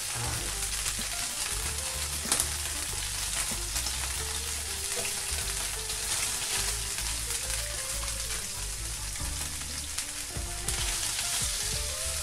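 Hot oil and meat drippings left from searing steaks sizzling in a frying pan as sliced onion is added by hand to sauté, with a sharp clink about two seconds in.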